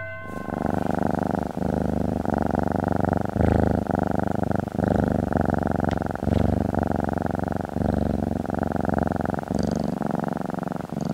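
Domestic cat purring steadily, the purr broken briefly about once a second as the cat breathes in.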